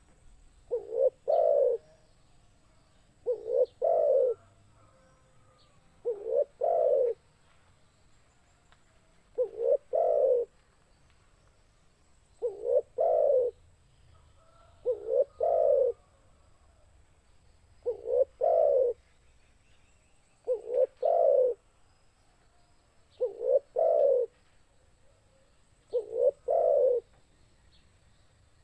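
Spotted dove cooing: a phrase of two or three quick, low coos, repeated about every two and a half to three seconds, ten times over.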